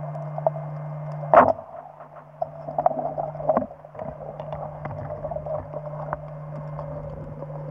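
Underwater sound picked up by a hand-held camcorder: a steady low hum with scattered clicks, and one sharp knock about a second and a half in.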